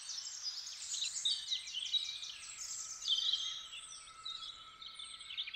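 Birdsong: several birds chirping and trilling in quick, overlapping phrases.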